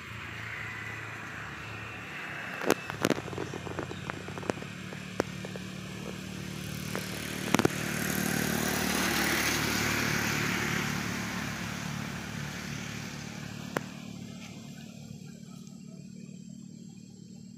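A motor vehicle's engine running steadily, growing louder to about halfway through and then fading away as it passes. Several sharp clicks sound in the first half, with one more near the end.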